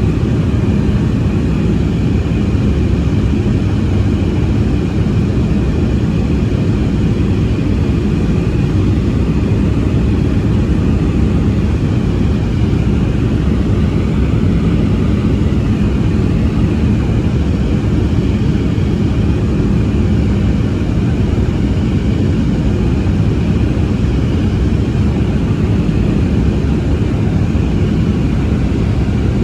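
Embraer E190-E2 jet airliner's Pratt & Whitney PW1900G geared turbofan engines running at climb power after takeoff. It is a steady deep rumble with a faint high whine, unchanging throughout.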